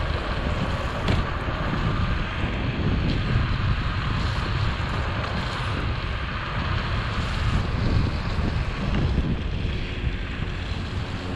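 Steady wind noise on a chest-mounted camera's microphone from riding an electric scooter, mixed with the hiss of its tyres on wet asphalt.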